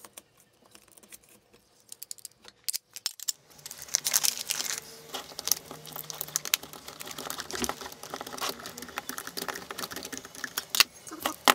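Irregular small clicks, taps and rattles of hands working machine screws with a T-handle hex key through birch-ply plates against aluminium extrusion. It begins after about three seconds of near silence.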